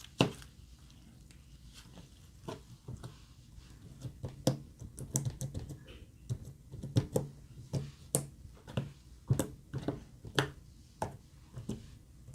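Glossy slime being squeezed and worked by hand, giving irregular sharp clicks and pops, about one or two a second.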